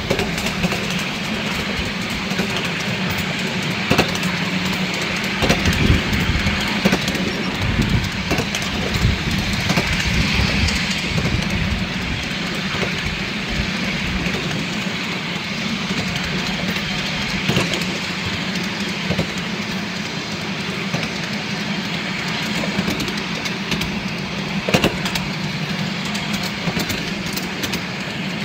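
Miniature railway train running along the track, heard from a riding car: a steady running noise of wheels on the rails with a few knocks as the wheels cross rail joints.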